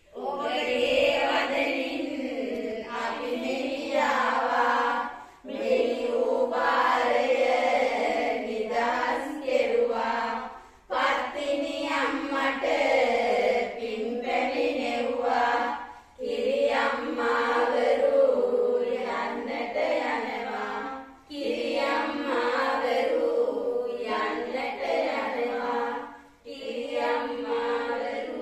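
A group of women chanting a devotional song together in unison. It goes in phrases of about five seconds, each followed by a short pause for breath.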